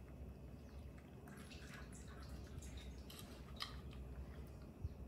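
Baby monkey chewing fruit: faint, wet smacking clicks, scattered and irregular, the sharpest about three and a half seconds in, with a soft low thump near the end.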